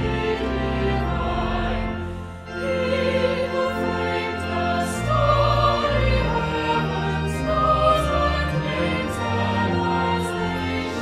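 Choral music: a choir singing with instrumental accompaniment, held chords over a slowly moving bass line.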